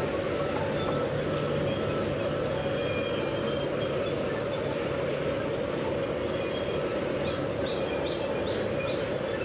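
Large sawmill band saw running steadily as a log is fed through the blade. A few short high chirps sound near the end.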